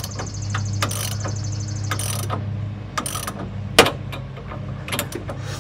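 Air-cooled VW flat-four engine being cranked over by its starter without firing, a steady mechanical drone with sharp knocks about once a second. The cranking is a test of the engine-driven fuel pump, with the carburetor feed line diverted into a cup, and the pump turns out to be working.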